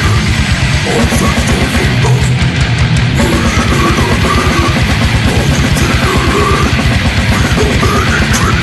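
Death metal recording: distorted electric guitars over fast, steady drumming.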